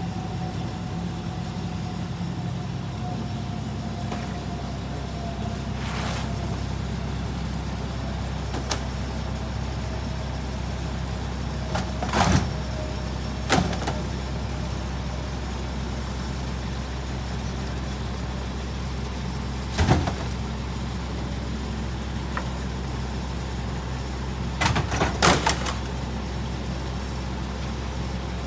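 Mack LE rear-loader garbage truck's diesel engine idling steadily, with a faint tone slowly falling in pitch over the first half. Several sharp bangs, a few seconds apart, come from bulk items being thrown into the McNeilus rear hopper, with a quick cluster near the end.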